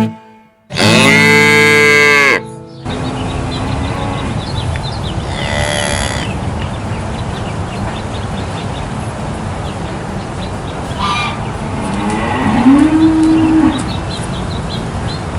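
Cattle mooing. A loud, drawn-out moo about a second in, then fainter moos over steady outdoor background noise, and another moo that rises in pitch and holds near the end.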